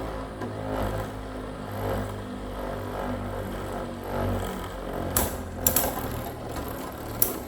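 Metal Beyblade tops spinning in a stadium with a steady whir, then a few sharp metallic clicks about five seconds in and again near the end.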